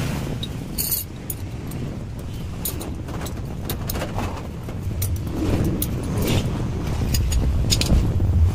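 Scattered light metallic clinks and clicks, like hand tools and small parts being handled, over a steady low rumble.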